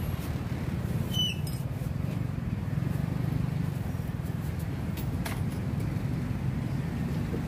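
Steady low rumble of road traffic, with a couple of light clicks from handling things at the counter, about a second in and about five seconds in.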